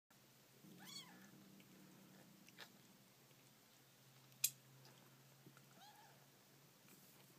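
Newborn kittens giving two short, high-pitched mews, one about a second in and another about six seconds in. A single sharp click, the loudest sound, comes midway.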